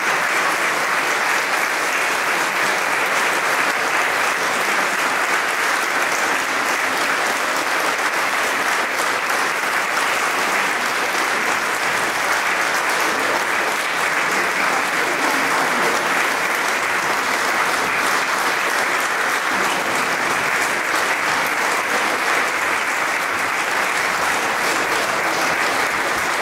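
Audience applauding, a long steady round of clapping that holds at the same level throughout.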